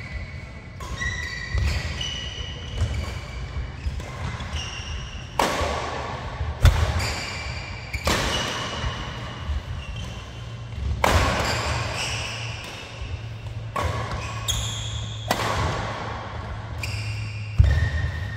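Badminton rally: rackets striking the shuttlecock every second or so, with sneakers squeaking on the court mat between shots. The sharpest hits come about seven seconds in and near the end.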